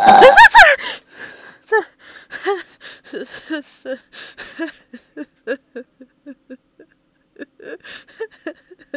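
A loud, high scream at the jump scare, then a long run of short, shaky gasps and whimpers, a few each second, that gradually thin out.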